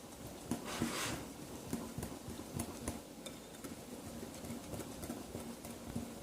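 Thick rice-flour and coconut-milk batter being stirred by hand in a bowl: soft, irregular tapping and scraping of the utensil against the bowl, with a brief swish about a second in.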